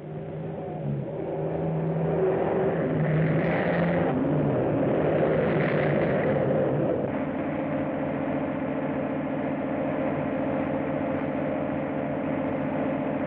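A motor vehicle engine running and revving, its pitch shifting in the first several seconds, then holding a steady drone from about seven seconds in.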